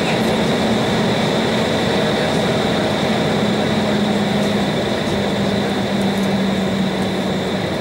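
Cabin noise of an Embraer 190 taxiing, its GE CF34-10E turbofans running at taxi power. A steady rushing hum with a high whine and a low drone, which steps slightly lower about five seconds in.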